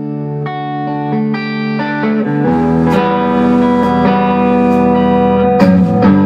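Electric guitar playing the opening chords of a rock song, swelling in volume; about two and a half seconds in the sound grows fuller and deeper, and cymbals crash a few times.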